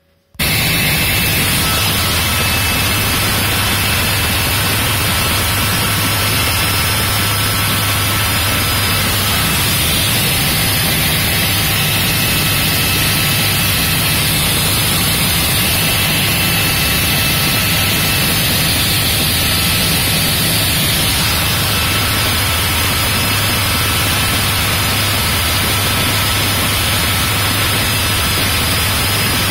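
Robinson R66 helicopter in flight heard from inside the cabin: the steady, loud drone of its rotor and Rolls-Royce RR300 turboshaft engine, with thin steady whines over a low rumble. It cuts in suddenly about half a second in.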